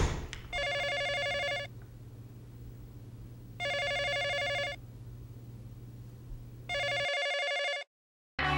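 Telephone ringing three times, each ring about a second long and evenly spaced, over a steady low hum; the sound cuts to dead silence shortly before the end.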